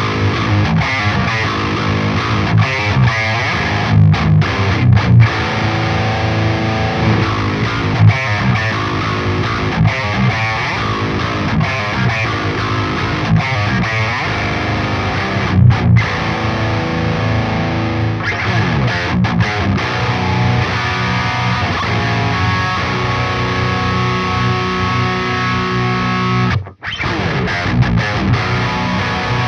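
Distorted electric guitar riffs, heard once through the real amplifier and once through its Quad Cortex neural capture, with a Sugar Drive overdrive in front, for a blind A/B comparison. The playing cuts out briefly near the end, then resumes.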